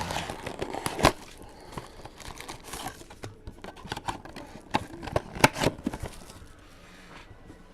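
A trading-card box being opened and its card pack wrappers crinkling and tearing, with sharp snaps. The loudest come about a second in and about five and a half seconds in, and it settles down near the end.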